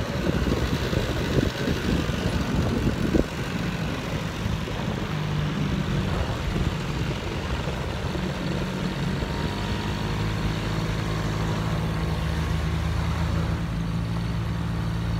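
Quad bike engine running as the bike is ridden over a dirt track, its note stepping up and down with the throttle. Some thumps and buffeting in the first three seconds.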